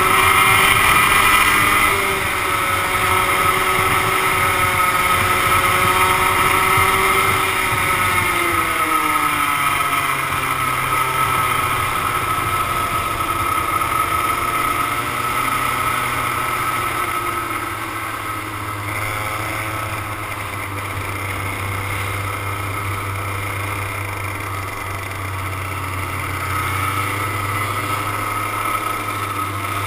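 100cc two-stroke racing kart engine running hard, heard from on board the kart, its pitch falling and rising with the throttle through the corners.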